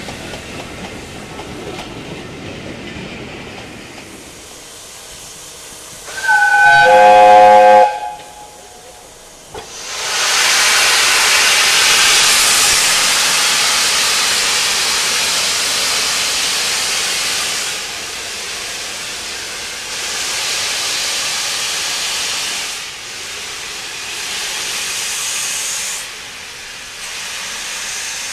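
Passenger coaches rumbling past on the rails. About six seconds in comes a loud blast of about a second and a half on a Peppercorn A1 Pacific steam locomotive's whistle. From about ten seconds in, steam hisses loudly and steadily from the locomotive's open cylinder drain cocks as it moves off, easing down in steps toward the end.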